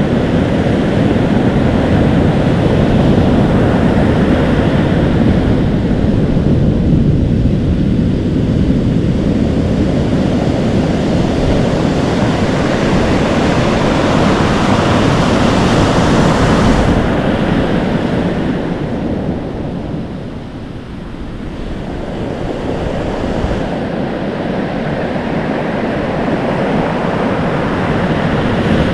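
Atlantic Ocean surf: waves crashing and foaming, with wind buffeting the microphone. The wash stays full, eases off for a few seconds past the middle, then swells again as the next wave comes in.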